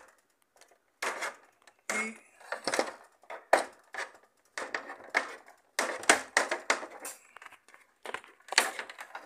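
Hard plastic clicking and knocking at irregular intervals as the front panel of a Mirage Magnum 19 Inverter minisplit is worked free, its hinge tabs being pushed out of their holes.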